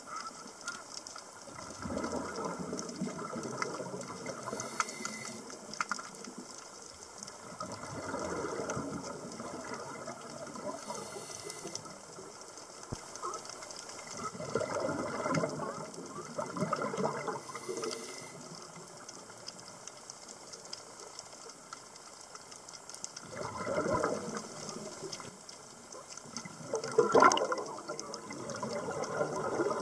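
Underwater sound of a scuba diver's exhaled bubbles, bubbling up in several bursts a few seconds apart over a steady faint hiss, the loudest burst near the end.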